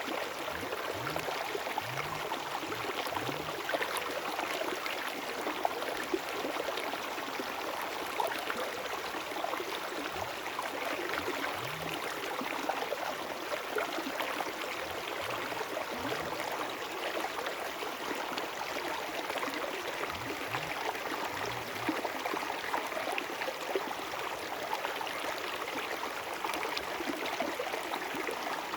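River water flowing with a steady rushing sound. Faint, short, low rising sounds come and go a few times.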